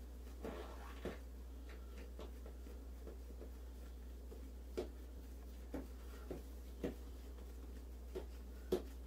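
Soft, irregular taps and light knocks of hands rolling cinnamon roll dough into a log on a stainless steel worktable, about ten in all, the sharpest near the end. A steady low hum runs underneath.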